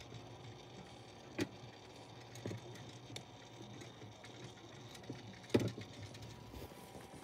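Small motor of a rotating disco ball light running with a steady hum, with a few sharp clicks over it, the loudest a little past halfway. The owner calls the disco ball broken and its noise annoying.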